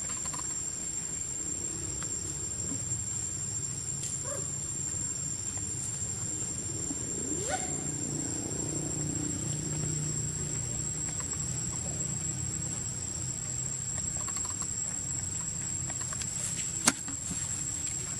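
A steady, high-pitched insect drone, like crickets or cicadas, holding one tone throughout. About seven seconds in there is a brief call that slides up in pitch, and near the end a single sharp click.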